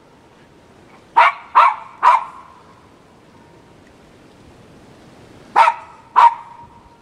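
Schipperke barking: three quick sharp barks about a second in, then two more near the end.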